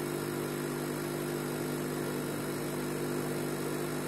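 Multifunction ozonizer's air pump humming steadily as it runs, feeding ozone through a tube into a glass of water.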